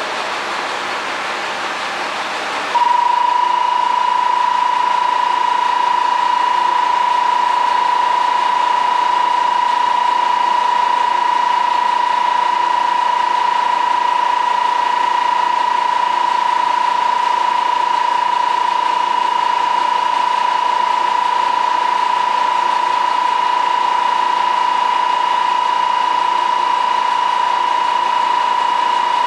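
Diesel railcar idling at the platform, joined about three seconds in by a steady electronic buzzer tone that starts abruptly and holds unbroken, louder than the engine.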